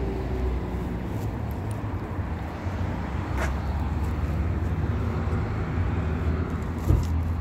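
Steady low rumble of road traffic, with a faint click midway and a short knock near the end.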